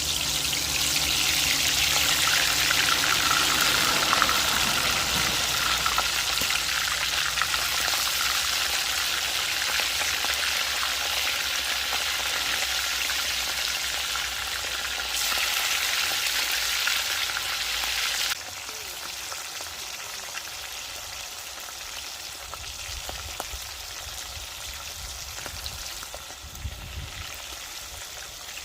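Wild rooster pieces frying in hot oil in a pot to brown them, a loud, steady sizzle. About two-thirds of the way through it drops suddenly to a quieter sizzle, and a soft thud comes near the end.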